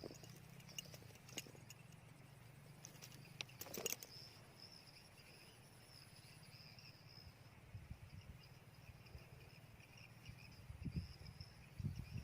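Faint, steady, high-pitched insect trilling, with a few light clicks in the first four seconds and some low thumps near the end.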